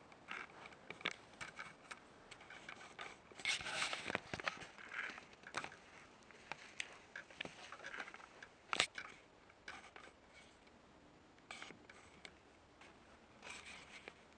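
Faint footsteps crunching and scraping on debris, with scattered small clicks and one sharper click about nine seconds in.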